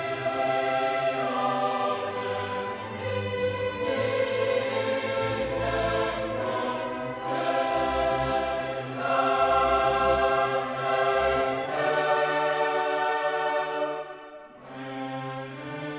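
Orchestral film score with a wordless choir singing sustained, slowly changing chords. It quietens briefly near the end.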